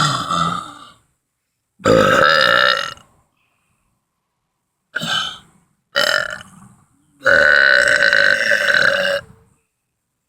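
A man's deliberate loud burps, forced up from the gas of carbonated soda: five in a row, the second and last ones long, the last lasting about two seconds.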